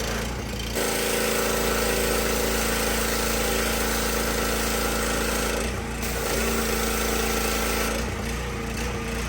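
Gas-engine pressure washer running while air is being purged from its line. About a second in it gets louder and takes on a steady whine, drops back briefly around six seconds, then rises again before falling back near the end.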